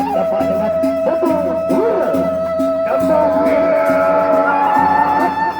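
Traditional Indonesian ensemble music: a high instrument holds long sustained notes over an evenly repeating low beat.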